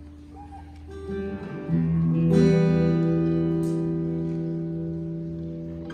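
Guitar playing live: a few plucked notes, then a strummed chord about two seconds in that rings out and slowly fades.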